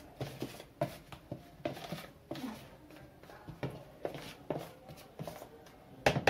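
Small plastic spoon stirring and scraping through flour in a plastic tub, with irregular light clicks and scrapes, and a louder clatter near the end.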